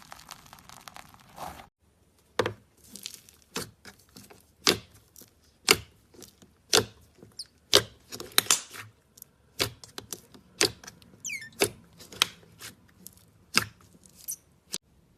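Slime being squeezed and poked, giving sharp sticky pops and clicks about once a second. A crackly, crinkling texture fills the first second and a half before it cuts off suddenly.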